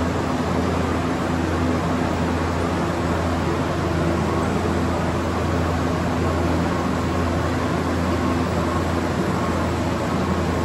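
Tobacco-processing machinery running steadily: a continuous mechanical noise with a constant low hum underneath.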